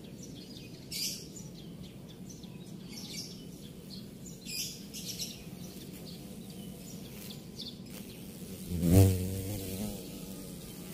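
Small birds chirping in short high bursts throughout. About nine seconds in, a large black carpenter bee flies close past, and its wing buzz swells and fades within about a second as the loudest sound.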